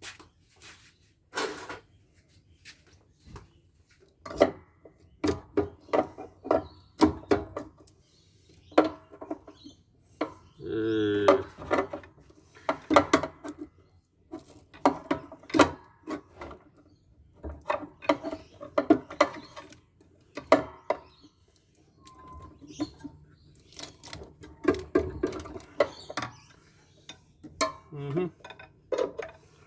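Metal parts and hand tools clinking, knocking and scraping against each other as a solar inverter is taken apart, in irregular sharp clatters. A short pitched squeal or strained sound comes just after the middle.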